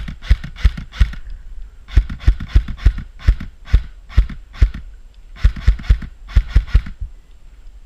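Airsoft rifle firing single shots in quick succession, about three a second, in three strings of rapid cracks with short pauses between them.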